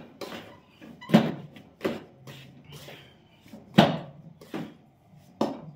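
Metal spatula scraping and knocking against a stainless steel bowl while stirring a dry, crumbly flour-and-ghee bait mix: a handful of sharp clinks and scrapes at uneven intervals, the loudest about four seconds in.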